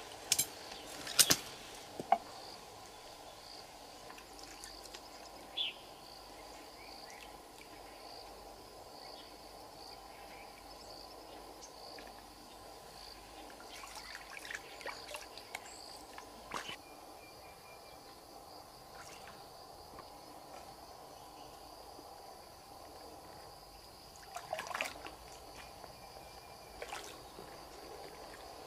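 Quiet riverbank ambience with insects chirring steadily in a high, pulsing band. A few sharp knocks and splashes come in the first two seconds as a keepnet is set in the water, and a short burst of splashing and rustling comes about 25 seconds in.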